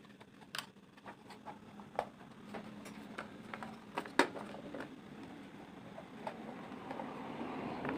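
Light, irregular clicks and taps of hard plastic being handled and fitted together as a PVC project box is put on, with the sharpest knocks about two and four seconds in.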